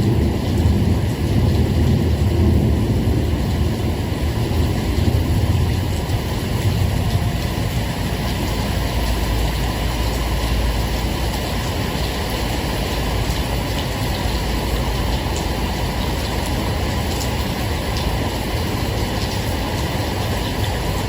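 Steady rain with a continuous low rumble of distant thunder, heavier over the first few seconds, then settling to an even roll.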